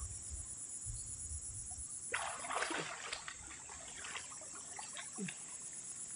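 Pond water sloshing and splashing as a man wades chest-deep through it, with a cluster of splashes about two seconds in and smaller ones after.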